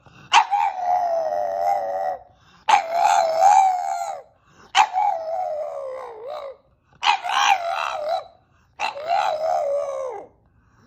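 A dog howling in a string of five drawn-out calls with short pauses between them, each call a second or two long and sliding down in pitch at its end.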